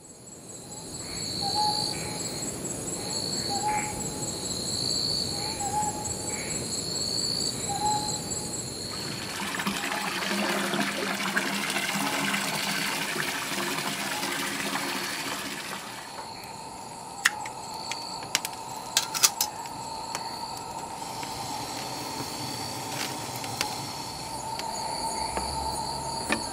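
Night insects chirping steadily, with a short call repeating every second or two. From about nine seconds in, hot water rushes and splashes in an iron goemon-buro bath for several seconds. A few sharp clicks and knocks follow, over the insects.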